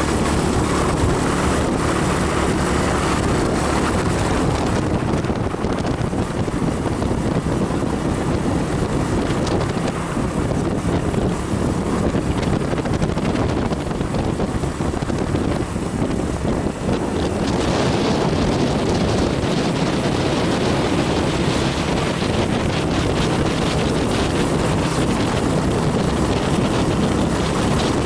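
Motorcycle engine running steadily at cruising speed, with wind rushing over the microphone; the wind hiss grows stronger a little past halfway.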